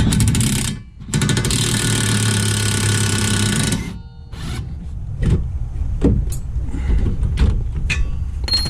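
Impact wrench hammering at a tight 14 mm bolt on a car's rear wheel hub: a short burst, then a longer burst of about three seconds. After it come scattered clicks and clanks of tools and metal parts.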